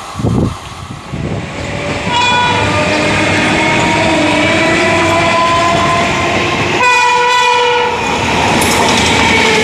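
Air horn of an Indian Railways WAP7 electric locomotive sounding as the express approaches at about 90 km/h: one long multi-tone blast about two seconds in and a shorter second blast about seven seconds in. These are followed by the rush and rail clatter of the locomotive and coaches running through.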